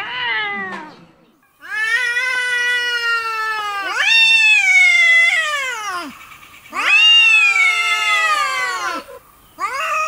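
Two cats in a face-off yowling: three long, drawn-out wavering calls one after another, each dropping in pitch as it ends, with a fourth starting near the end. This is the threatening caterwaul of a cat standoff. A short falling meow comes just before the yowling.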